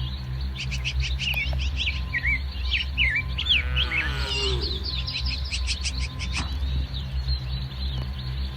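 Small birds chirping and twittering in many short, quick calls, with a brief falling call about halfway through and a steady low hum underneath.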